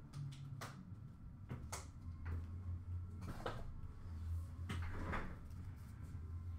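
Scattered light knocks and clicks of objects being handled, about eight in all, over a low steady hum.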